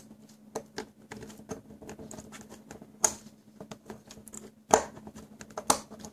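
A small knife blade cutting around the plastic at the end of a Trustfire battery cell, by its protection circuit board: a run of small irregular clicks and scrapes, with a few sharper snaps about three seconds in and near the end.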